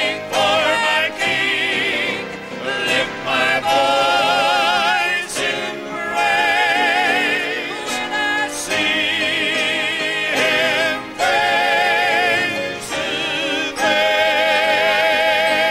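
Southern gospel male quartet singing long held notes in harmony with wide vibrato, with piano accompaniment.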